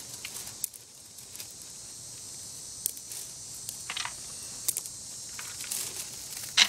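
Small, scattered clicks and rustles of gravel stones, a handful over several seconds, as a dog noses and sniffs among them, over a steady hiss.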